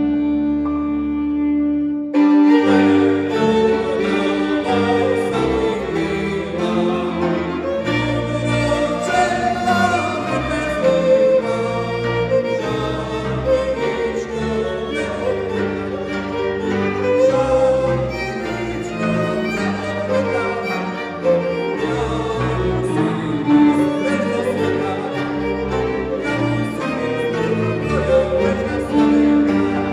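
A folk string band of fiddles, double bass and cimbalom playing a song tune together. A long held note gives way about two seconds in to the full band, with the bass moving underneath.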